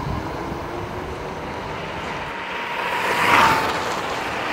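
Kaabo Wolf Warrior 2 electric scooter at speed on a top-speed run: its hub motors give a steady high whine over a rushing noise, swelling louder about three seconds in.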